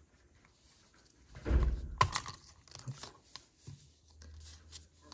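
Plastic casing of a Volkswagen flip-key remote being worked apart by hand. There is a rustling scrape about a second and a half in, ending in a sharp click as the back piece comes loose, then a few light plastic clicks.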